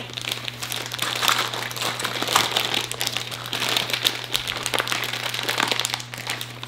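Plastic packaging bag crinkling continuously as it is handled and cut open with scissors.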